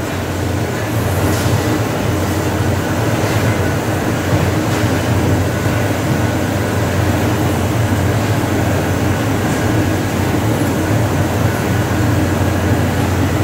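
Steady drone of running machinery with a strong low hum, unchanging throughout.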